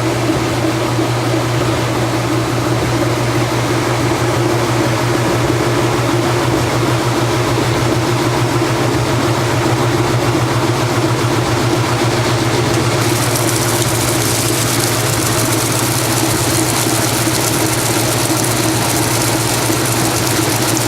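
1992 top-load washing machine running its spin cycle with the cabinet off: a steady motor hum with a rhythmic wobble, a slightly shaky, off-balance spin. About two-thirds of the way through a hiss joins in.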